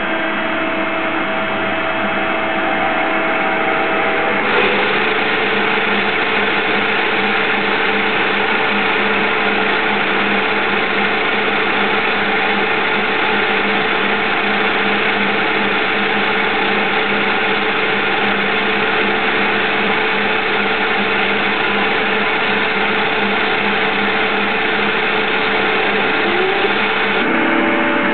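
CNC-converted Myford Super 7 lathe running under power, turning a metal spindle nose blank while a carbide insert tool cuts it: a steady machine whir with a held whine that changes pitch about four seconds in and again near the end.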